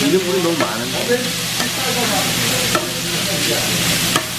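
Fried rice with bean sprouts and seaweed sizzling on a large dakgalbi griddle while a flat metal spatula stirs and chops it, with a steady frying hiss and a sharp clack of the spatula on the pan every second or so.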